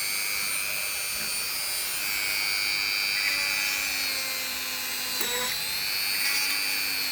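A small electric motor running with a steady whine that shifts pitch suddenly about five seconds in, as when a load comes on or off.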